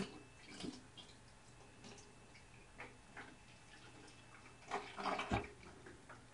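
Watery yeast slurry trickling from a fermenter bucket's spigot into a plastic jug, with irregular small splashes and drips, loudest about five seconds in.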